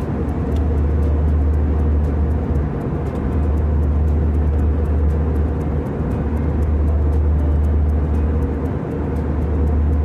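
Jet airliner cabin noise during takeoff: a loud, steady, deep rumble from the engines and airframe, easing slightly for a moment about three times.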